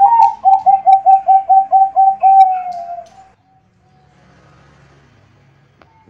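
Zebra dove (Bangkok-type perkutut) cooing: a quick run of about ten short coos, roughly four a second, sagging slightly in pitch and ending in one longer drawn-out note about three seconds in.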